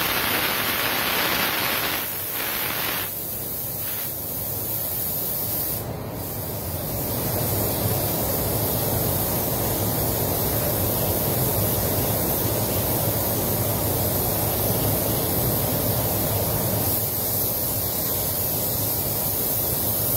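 Compressed-air paint spray gun hissing as it sprays base coat in a spot repair, the hiss brighter for the first few seconds and then steadier and duller.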